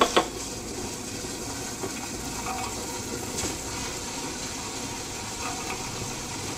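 Electric tabletop wet grinder running steadily, its stone rollers churning soaked rice with a little water into coarse batter. A sharp click comes right at the start.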